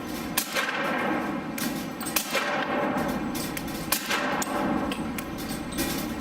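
Suppressed shots from an H&K P30 .40 S&W pistol fitted with an AAC Tirant 45M silencer, several sharp cracks with a metallic clang to them, a second or two apart, over a steady HVAC drone.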